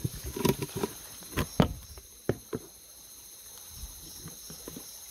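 Night crickets chirping steadily, with several sharp knocks and taps in the first two and a half seconds.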